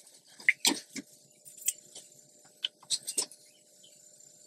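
Light, irregular clicks and ticks of a torque wrench being worked on a mountain bike's stem pinch bolts, with a quick cluster of clicks about three seconds in.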